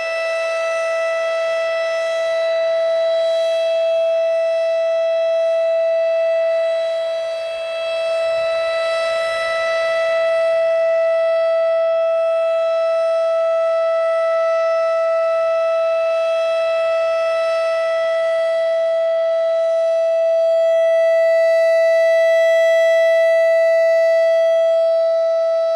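RSH-10 Thunderbeam outdoor warning siren sounding a loud, steady tone held at one pitch. Its level swells and fades slowly, dipping briefly about seven seconds in and loudest near the end.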